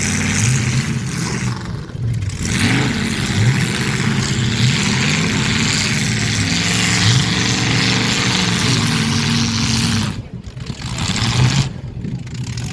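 Demolition derby cars' engines revving hard, their pitch climbing and falling again and again as the cars drive and ram in the arena.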